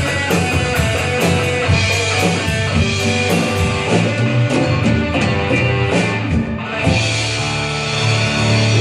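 Live band playing an upbeat rock-style instrumental passage, with guitar over a steady drum-kit beat. About seven seconds in the drum strikes stop and a low chord is held.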